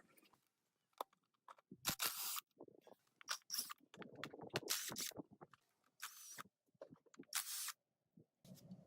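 Hand work on a stripped diesel engine block: scattered light metal clinks and knocks, with several short hissing bursts of about half a second each.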